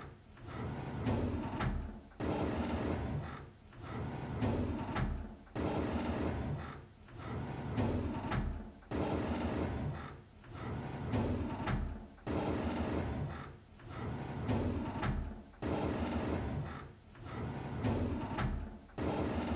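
A drawer sliding open again and again in a continuous loop, each pull a rumbling scrape lasting about a second and a half, coming back roughly every one and a half to two seconds.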